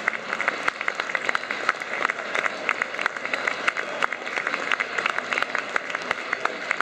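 Football stadium crowd applauding: many hands clapping in a dense, steady stream.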